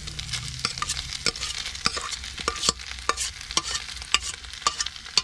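A metal spoon scraping and clicking against a stainless steel pan as cooked rice is pushed out into a cast-iron skillet of vegetables. A steady sizzle from the hot skillet runs underneath.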